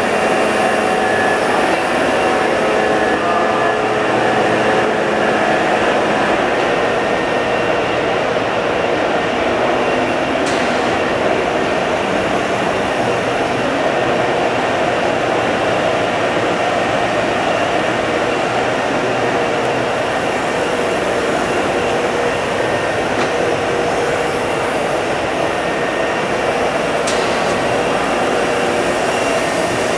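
Nakamura-Tome SC-250MSC CNC turning center running under power: a steady loud whirring hiss with faint steady tones, and a couple of faint sharp ticks.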